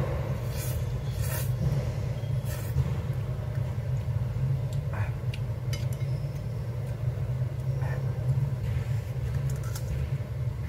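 Spicy ramen noodles slurped off chopsticks in three short noisy bursts in the first three seconds, then a few light clicks of chopsticks and dishes. A steady low hum runs underneath and is the loudest sound.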